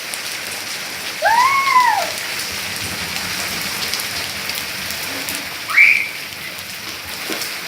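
Heavy rain falling steadily and splashing on the ground. Two short pitched calls cut through it: one rises and falls about a second in, and a shorter one rises near the end.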